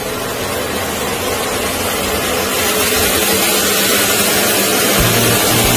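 Loud, steady rushing of air from a workshop fan, growing gradually louder, with a low steady hum joining about five seconds in.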